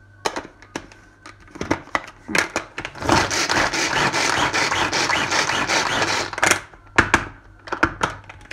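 Manual pull-cord food chopper mincing onion: a few clicks and knocks as the lid goes on, then a fast, unbroken run of cord pulls for about three and a half seconds, the blades spinning and rattling through the onion pieces, and a few more pulls near the end.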